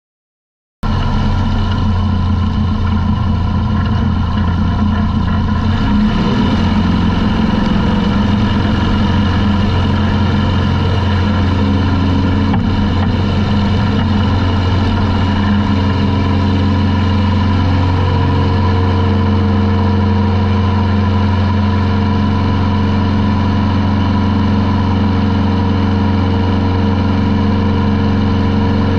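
Pietenpol Air Camper's Corvair-based air-cooled flat-six engine and propeller at takeoff power, on the takeoff roll and climb-out. It cuts in abruptly about a second in, then runs loud and steady at a constant pitch.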